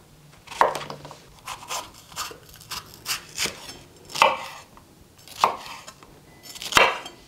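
Chef's knife chopping zucchini, then an orange bell pepper, on a wooden cutting board: an uneven series of sharp knocks of the blade hitting the board.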